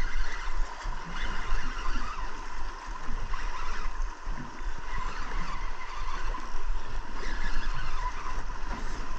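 Spinning reel being cranked in against a hooked Arctic char, with a steady whine from the reel over wind on the microphone.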